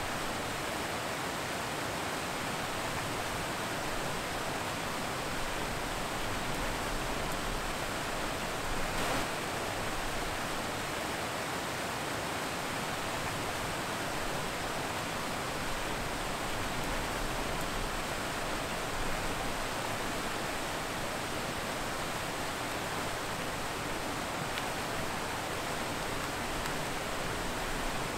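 Water pouring over a stepped concrete dam spillway: a steady, even rush of falling water.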